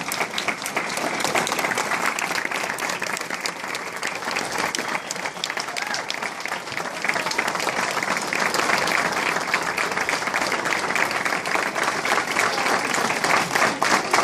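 Audience applauding: dense clapping from many hands, growing a little louder about halfway through.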